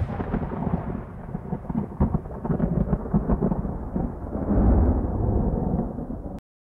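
Thunder sound effect: a deep rolling rumble with crackles that swells again about four and a half seconds in, then cuts off abruptly near the end.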